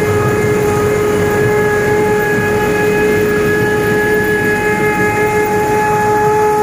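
Tractor-PTO-driven sunflower threshing machine running steadily, a constant whine over a rough rumble.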